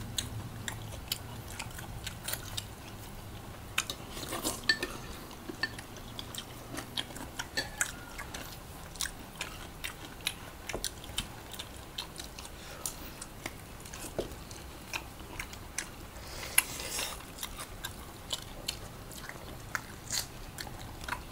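Close-miked chewing and biting of people eating chicken adobo and rice by hand, with many small sharp wet clicks from mouths and fingers.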